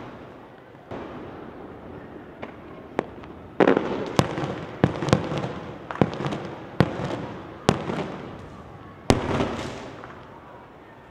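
Aerial firework shells bursting in the sky: about a dozen sharp bangs spread over some nine seconds, several with a long fading tail, the last loud one about nine seconds in.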